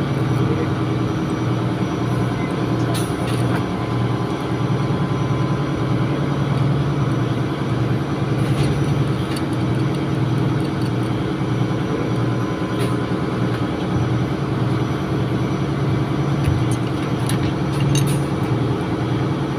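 Steady drone of running ship's machinery, with a few light tool clicks and clinks.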